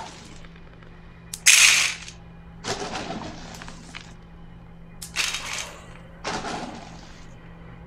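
Dry dog kibble being scooped and poured into a dog dish, rattling in four short pours, the first, about a second and a half in, the loudest.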